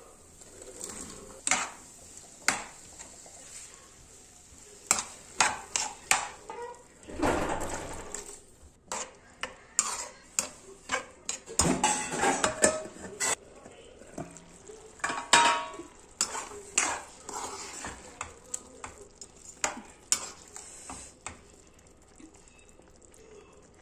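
A steel spoon stirring chickpea curry in a dark metal pan: repeated clinks and knocks of the spoon against the pan, with two longer stretches of scraping and sloshing.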